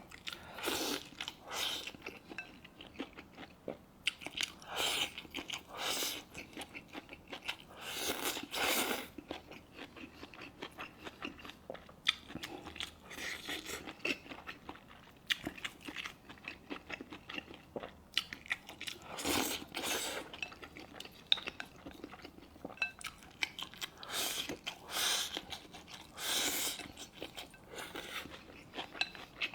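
Close-miked eating of braised pork hock and rice: chewing and biting the soft meat, a string of small clicks broken by louder bursts every few seconds.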